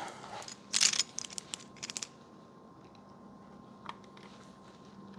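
Plastic clicks and a short scraping rustle from hands working a Segger Flasher 5 programmer's plastic case, feeling for the tabs that release it, in the first two seconds. Then it goes quiet, with one faint click about four seconds in.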